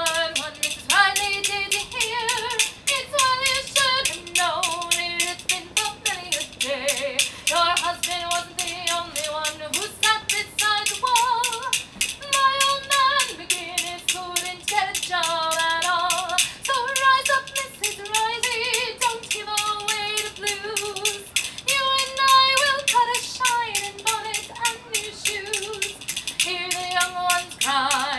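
A woman singing a song at full voice to her own accompaniment on whale-bone castanets (rhythm bones). The bones clack in a fast, steady rattle under the melody.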